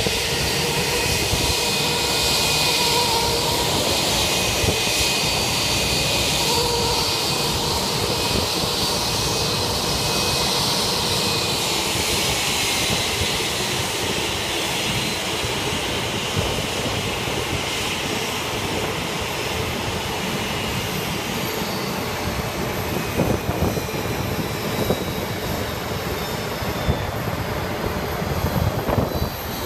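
Jet aircraft engines running: a steady rush of noise with a high whine on top. About twelve seconds in, one whine slides down in pitch.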